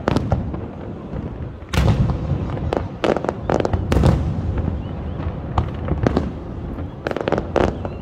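Low- and mid-altitude fireworks going off in a rapid string of sharp bangs and crackles. The heaviest clusters of bursts come about two seconds in, three to four seconds in, and again near seven seconds.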